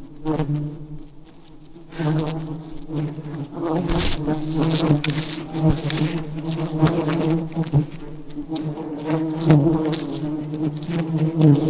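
A dense swarm of wild honey bees buzzing as a steady, many-toned drone, with scattered clicks and knocks over it. It drops briefly about a second in, then continues.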